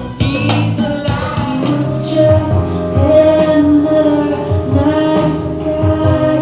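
A song plays: a female voice sings a melody in long held notes over instrumental accompaniment.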